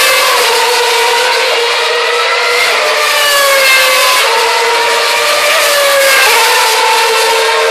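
2012 Formula One cars' 2.4-litre V8 engines screaming at high revs, several at once, their pitch rising through the gears and dropping on downshifts. One car passes close about six seconds in.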